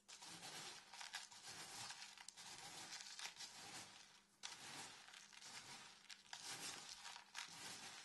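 Coarse bath salt crystals (pink Himalayan, pearl and Dead Sea salt) crunching and rustling as they are stirred in a plastic tub, first with a metal spoon and then by hand, with a brief pause about four seconds in.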